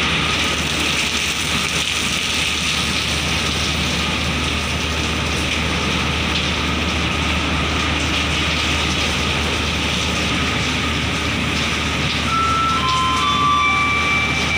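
Steady low hum of a car ferry's engines under a constant hiss of wind and rain on the open deck. A few short high beeping tones come in near the end.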